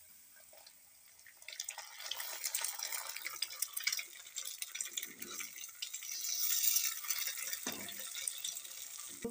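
A raw egg frying in hot mustard oil in a kadai among frying carrots and onions: after a quiet first second or so it sizzles and crackles, loudest a little past the middle.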